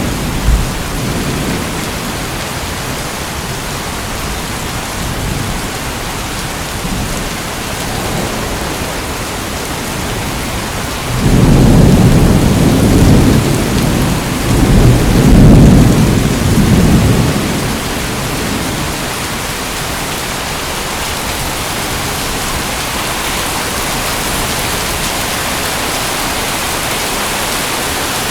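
Steady heavy rain hissing, with a long low roll of thunder about eleven seconds in that swells twice and dies away several seconds later.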